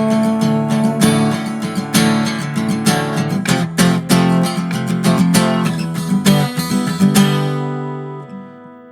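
Acoustic guitar strumming chords in an instrumental break of a folk song, with no singing; near the end a chord is left to ring and fade away.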